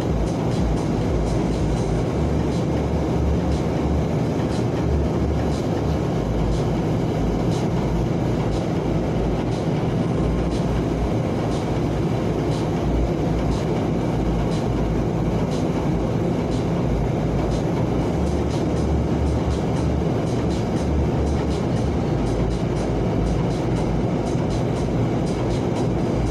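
Steady road and engine noise of a vehicle on the move, a constant low rumble with hiss above it.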